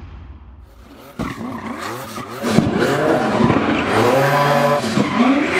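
V12 engine of a Mercedes C-Class drift car revving hard, its pitch swinging up and down several times, with tyres squealing in a burnout. The sound is quieter for the first second, then turns loud.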